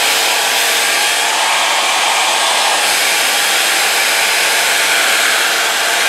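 Salon Series 1875-watt handheld hair dryer running on its low setting: a steady, even rush of fan and air noise.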